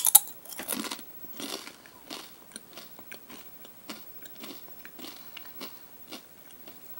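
Crunching of a crisp wasabi rice cracker being bitten and chewed. Sharp loud crunches come at the bite in the first second, then softer crunches about every half second, fading away.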